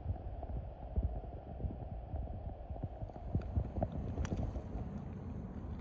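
Low, uneven outdoor background rumble at the shore, with soft irregular thumps and a few faint clicks in the middle.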